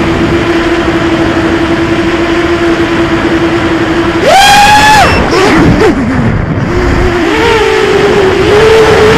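Eachine Tyro 129 FPV racing quadcopter's motors and propellers, heard from on board with wind rush: a steady hum that jumps sharply to a high whine about four seconds in as the throttle is punched, drops away and wavers a second later, then settles back to a steady hum that creeps up in pitch near the end.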